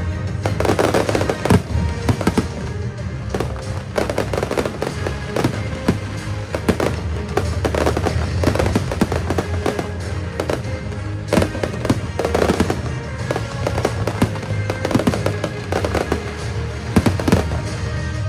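Aerial fireworks shells bursting in quick, irregular succession, many bangs throughout, over loud music with a steady low bass.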